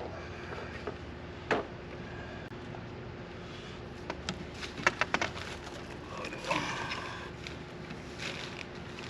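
Scattered sharp clicks and knocks of irrigation pipe fittings being handled and fitted together, with a quick cluster of them about halfway through, over a faint steady hum.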